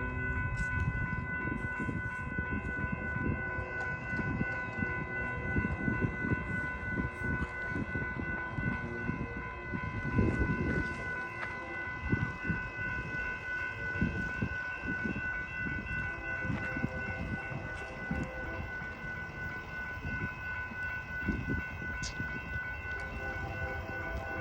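A train rolling past, its wheels knocking unevenly over the rail joints. A steady high whine of several tones is held through the whole pass.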